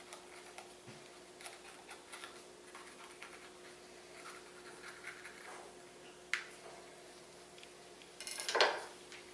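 Faint scraping and light tapping of a kitchen knife against a wooden cutting board as habanero peppers are cut and seeded, over a faint steady hum. A sharp click comes a little after six seconds in, and a louder scrape near the end.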